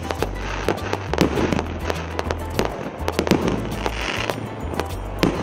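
A 200-shot consumer firework cake with 1.25- and 1.5-inch tubes firing in sequence: irregular bangs of shells launching and bursting, about two a second.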